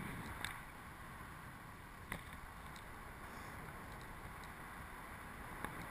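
Steady rush of wind over the microphone of an action camera carried through the air under a tandem paraglider in flight, with a few faint clicks.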